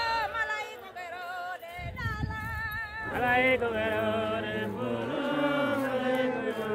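A group of people singing a hymn-like chant together while walking in procession, with a fuller chorus of many voices from about three seconds in. A low rumble sounds about two seconds in.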